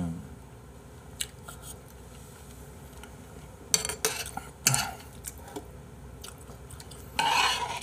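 Mukbang eating sounds: a metal fork tapping and scraping in a ceramic side dish, and chewing. There are a couple of faint clicks about a second in, short bursts of noise around the middle, and a louder burst of noise near the end.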